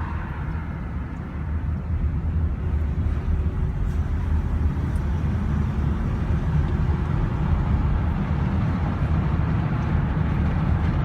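Steady low rumble of a vehicle running, with no distinct squeak standing out.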